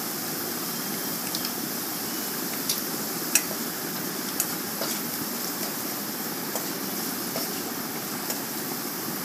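Chopped onion, garlic and ginger with spices frying in oil in a pan, sizzling steadily, with a few light clicks of a spoon or spatula against the pan as it is stirred, the sharpest about three seconds in.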